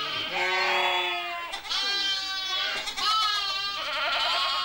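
Lambs and goats bleating in a pen, several long calls overlapping one after another.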